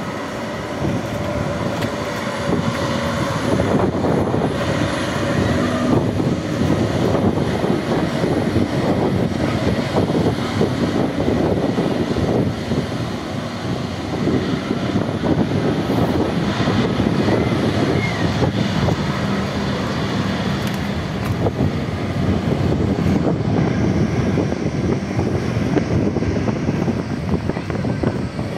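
Jet engines of an Airbus A320neo airliner running steadily as it taxis onto the runway.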